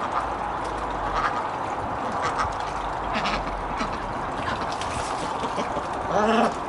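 White domestic ducks quacking as they swim in, with scattered short calls and a louder run of quacks near the end, over a steady background hiss.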